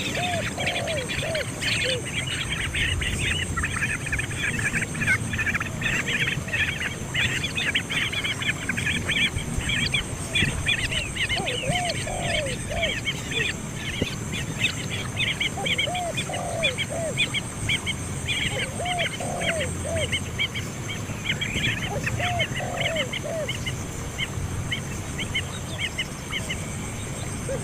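Birds calling: a dense run of rapid, high chirps, thinning out in the second half, with a lower, arched call of two or three notes repeating every three to four seconds.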